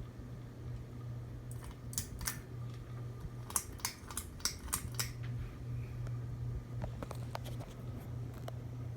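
42-inch Harbor Breeze Armitage ceiling fan running with a steady low motor hum. A quick run of about eight sharp clicks comes a couple of seconds in, and a few fainter clicks follow near the end.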